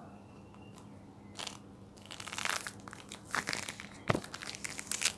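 Close-miked tangerine peel being torn and pulled away from the fruit, crackling in short clustered bursts, with one sharp thump a little after four seconds.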